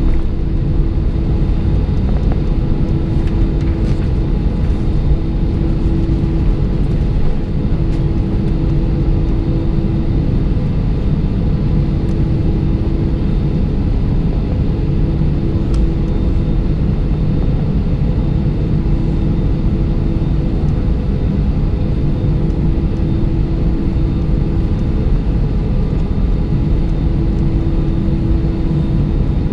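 Cabin noise of an Airbus A320 in the climb after takeoff: a steady, loud drone of engines and rushing air, with a hum that fades in and out every few seconds.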